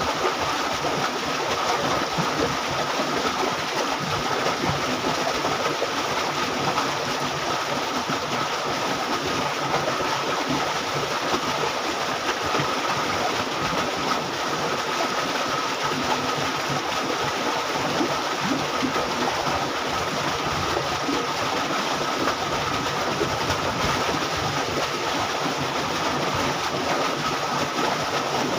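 Fast-flowing water rushing steadily down a concrete irrigation canal, an even rush without breaks.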